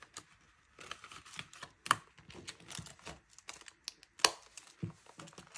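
Handling of a cash-envelope binder: paper bills and clear vinyl pockets rustling and crinkling, with irregular small clicks and two sharp louder clicks, about two seconds and about four seconds in.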